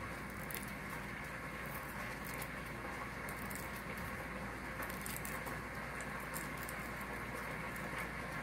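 Cooked quail eggs being peeled by hand: faint, irregular crackles and ticks of breaking shell over a steady hiss.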